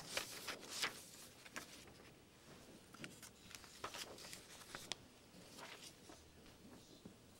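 Faint, scattered rustles and light clicks of people moving about a quiet room: papers being handled and a few footsteps, with no speech.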